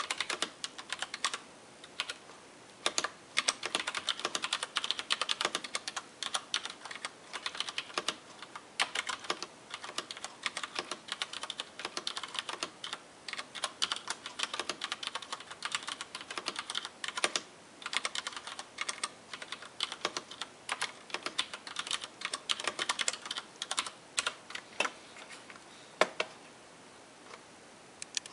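Typing on a Rosewill RK-9000 mechanical keyboard with Cherry MX Brown switches: fast runs of sharp keystroke clacks broken by short pauses, with the odd louder key strike.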